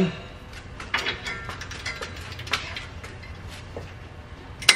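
Milwaukee cordless ratchet working rusted exhaust Y-pipe nuts loose: the motor hums with a scatter of clicks and knocks, and a sharp click comes near the end.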